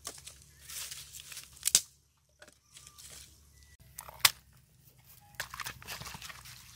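Dry sticks snapping by hand, with two sharp cracks in the first two seconds. After a brief silence, hands work a chopped-chilli and herb mixture into eel pieces in a pot, giving a run of small rustling, crunching noises.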